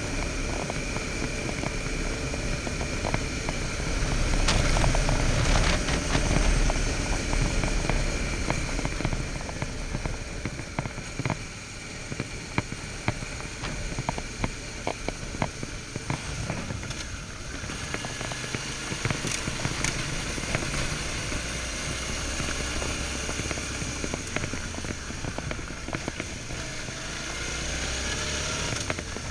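Suzuki V-Strom 650's V-twin engine running under way on a trail, with a steady rush of wind and tyre noise. Many small sharp crackles from gravel and stones run through it, and it gets louder for a few seconds about four seconds in.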